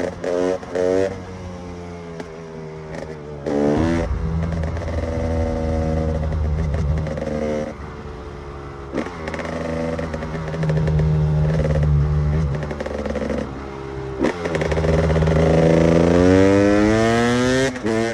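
KTM EXC 300 single-cylinder two-stroke enduro engine. It is revved in quick blips at the start and again at the end. In between, the pitch steps up and down as the throttle is worked, with a long rising climb about three quarters of the way through.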